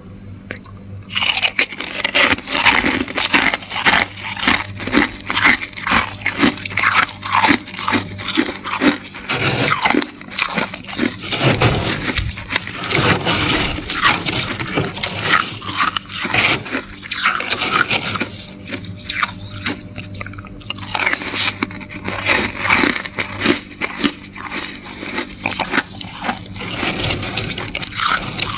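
Dry, flaky freezer frost crunching and crackling over and over, a few crunches a second, as a metal spoon digs into it and it is chewed.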